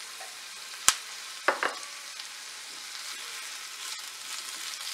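Sliced onions and bell peppers sizzling in hot oil in a nonstick frying pan as a spatula stirs them. A sharp click comes about a second in, and two quick knocks follow half a second later.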